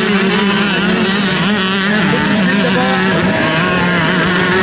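A pack of motocross bikes racing at once, several engines running at different pitches that waver up and down as the riders work the throttles, growing nearer as the bikes come through the turn.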